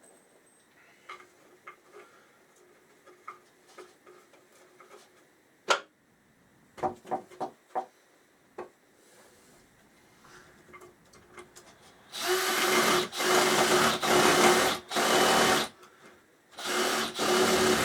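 Small electric drill running in several short bursts of steady speed, a few seconds of on-and-off triggering near the end. Before it come scattered light clicks and knocks of parts and tools being handled.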